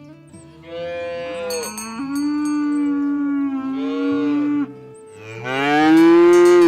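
Ox mooing: three long, deep calls, the last rising in pitch and the loudest, cut off at the end.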